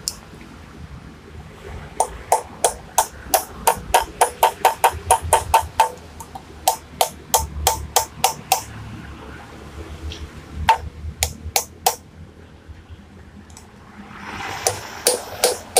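Hammer blows on steel at a seized bolt in a Honda Tiger's rear wheel hub, held in locking pliers, to knock it loose. A fast run of ringing metallic strikes, about four a second, then a pause and a few more blows, and more near the end.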